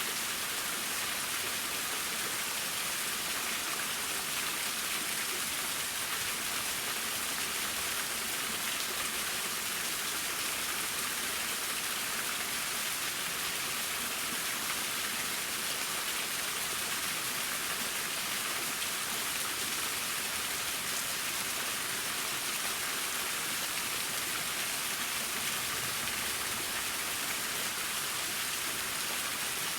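Waterfall splashing steadily: an even, unbroken hiss of falling water, strongest in the high end.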